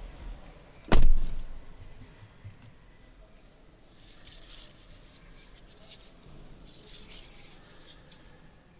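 A single heavy thud about a second in, then light, irregular crinkling and rustling of the protective plastic wrap on a new pickup's steering wheel as a hand rubs and taps over it.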